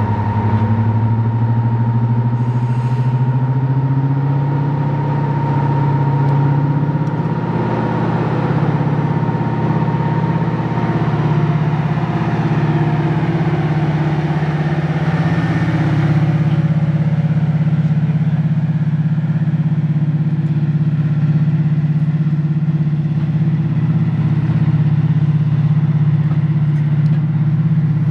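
Class 55 Deltic diesel locomotive 55019, its two Napier Deltic two-stroke opposed-piston engines running hard as it pulls a train past. There is a steady deep drone that rises in pitch over the first few seconds, and a high whine that fades out about ten seconds in.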